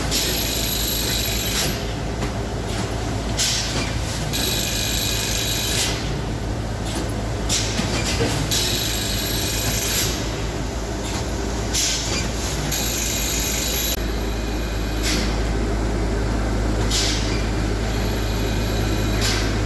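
Bag filling and band-sealing line running: a steady motor hum with loud compressed-air hisses, each lasting about a second and a half, repeating about every four seconds in time with the line's cycle of about 16 bags a minute. The long hisses stop about two-thirds of the way through, and only shorter ones go on.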